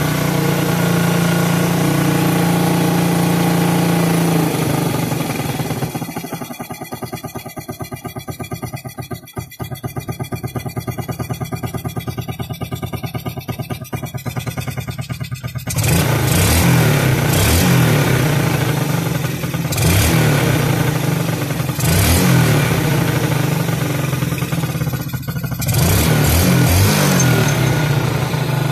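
Yamaha Vega ZR 115's single-cylinder four-stroke engine running after its carburetor was repaired for a vacuum leak: first a fast idle, settling about six seconds in to a slower, even idle, then from about sixteen seconds the throttle is blipped several times, with short revs up and back down.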